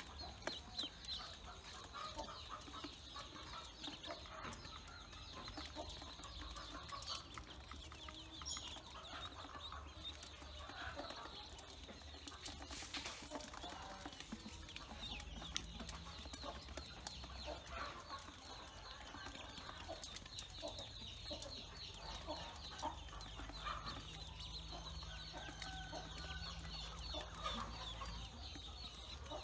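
A brood of Pekin ducklings peeping nonstop, many short high peeps overlapping, with scattered light taps of bills pecking feed in a metal bowl.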